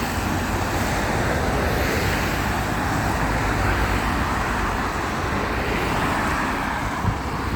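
Steady stream of rush-hour road traffic passing close by, a continuous rush of car engines and tyres on a wet road.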